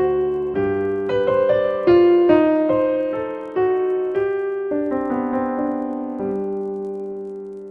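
Background piano music: a slow, gentle melody of single notes over sustained chords, the last chord fading away near the end.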